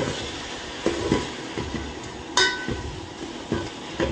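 Metal spoon scraping and knocking against a metal pot while stirring chicken pieces with yogurt, with one sharper ringing clink about halfway through.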